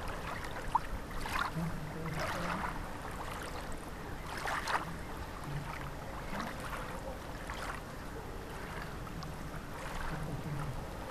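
Water lapping and splashing gently around a small boat on a calm river, with soft splashes every second or two over a steady wash of water.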